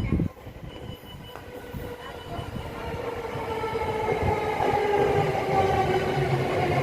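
A short thump, then a Sobu Line electric commuter train coming in on continuous welded rail. Its motor whine drifts slowly down in pitch and grows steadily louder as the train slows into the platform.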